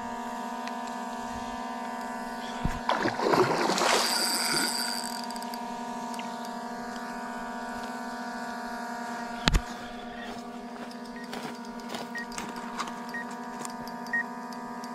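Splashing about three seconds in, lasting around two seconds, as a longnose gar being reeled in thrashes at the water's surface. Under it runs a steady hum with several pitches, and a single sharp knock comes about halfway through.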